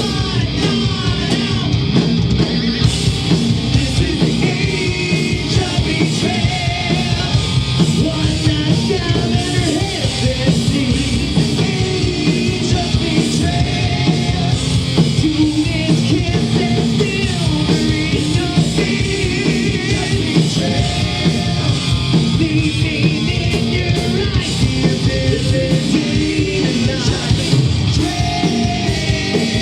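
Metal band playing live, with loud distorted guitars, drums and a singer's vocals in a dense concert mix.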